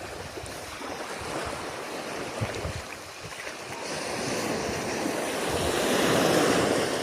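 Sea waves washing in, with wind buffeting the microphone; one wave swells to its loudest about six seconds in and then eases off.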